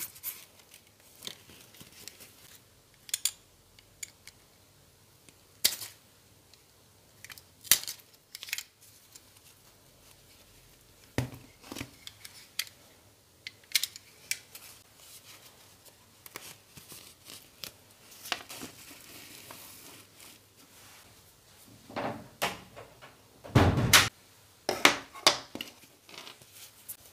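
Snap-off utility knife cutting through the stitching of an old leather wallet, in scattered sharp snips, with the fabric lining and leather being pulled apart and handled. A louder spell of tearing and rustling comes near the end.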